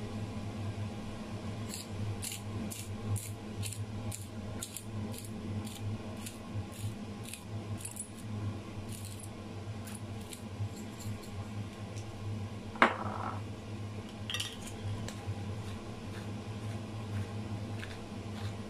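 Pink salt bottle rattling as it is shaken over raw chicken, in even strokes about two a second, then a single louder knock with a short ring, over a steady low hum.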